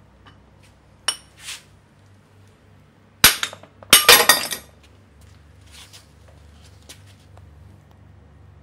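Hammer blows on a steel drift knocking a rusted, crumbling tube out of an outboard motor's aluminium clamp bracket: one ringing metallic strike about a second in, then a louder cluster of strikes from about three to four and a half seconds in.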